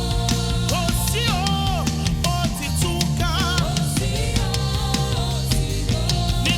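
Live gospel worship music: a lead singer with drums, bass and keyboards playing at a steady beat.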